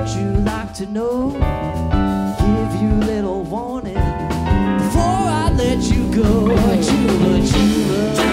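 Live rock band playing an instrumental passage: electric guitar lead with bending, sliding notes over bass, drums and keyboard.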